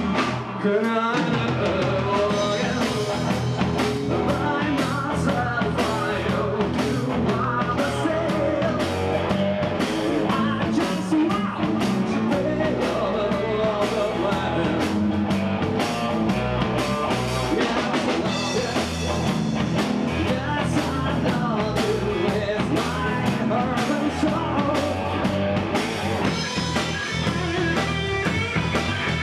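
Rock band playing, with electric guitar, drum kit and a singing voice. The bass and drums drop out for a moment at the start, then the full band runs on steadily.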